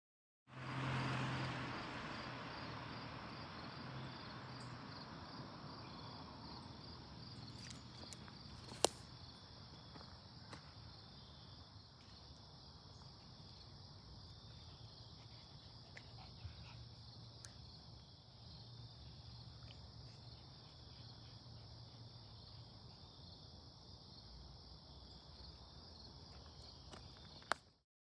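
A steady, high-pitched insect chorus, a continuous pulsing trill, over faint outdoor background noise that fades during the first few seconds. A single sharp click comes about a third of the way in.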